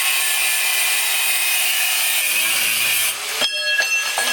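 A grinder cutting through the steel of a leaf spring makes a steady, hissing grind that stops abruptly about three seconds in. A few sharp clanks of ringing steel follow.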